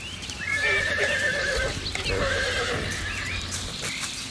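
Young stallions neighing: one long wavering call, then a shorter one about two seconds in, with a few hoofbeats on turf.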